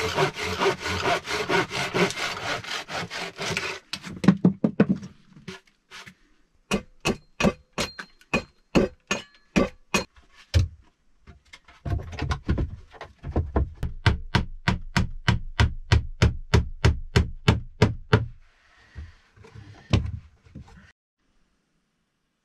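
Hand saw cutting through a wooden board in quick strokes, followed by two runs of evenly spaced sharp knocks on wood, about three a second, and a single knock near the end.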